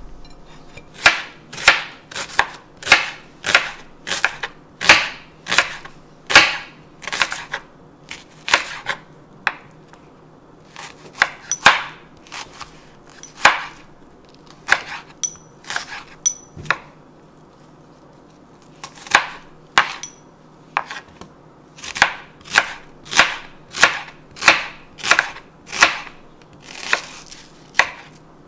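Kitchen knife slicing a peeled onion on a wooden cutting board, each cut ending in a sharp tap of the blade on the board, about two a second. The cuts thin out and soften for several seconds in the middle, then pick up their steady pace again.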